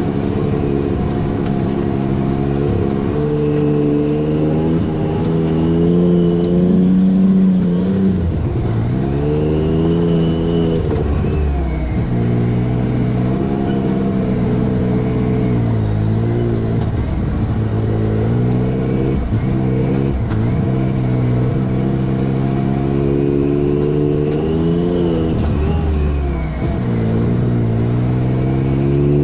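Side-by-side UTV engine running hard, its revs dipping and climbing again several times as the throttle comes off and back on, with a fainter whine that rises and falls with engine speed.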